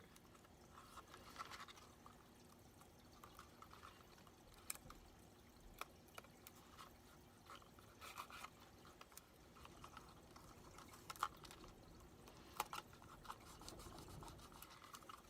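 Near silence with faint crafting sounds: a handful of small clicks and short rustles of tape being handled and pressed onto a cardboard tube.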